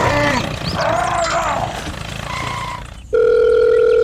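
Voices crying out with rising and falling pitch, then about three seconds in a loud, steady electronic beep starts and holds.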